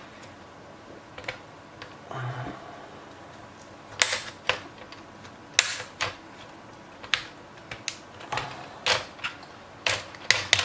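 Plastic clip tabs of a laptop's display bezel snapping loose as a pry tool works around its edge: a run of sharp, irregular plastic clicks and snaps starting about four seconds in.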